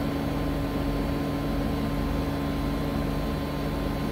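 2002 Mazak SQT-250 MSY CNC lathe running at low speed during a test run. It gives a steady hum with several constant whining tones and no change in pitch.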